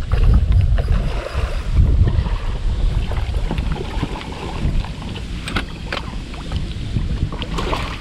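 Wind buffeting the microphone in heavy low gusts, with water splashing as a hooked redfish thrashes at the surface. There are a few sharp splashes in the second half, the last as the fish is scooped into a landing net.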